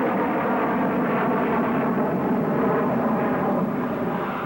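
Jet aircraft engines in flight, a steady rushing engine noise.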